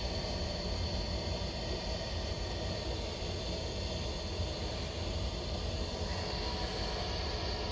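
Rooftop gas furnace's vent (combustion air inducer) motor running steadily, a continuous hum with a low rumble and a few steady tones, during the pre-purge before ignition.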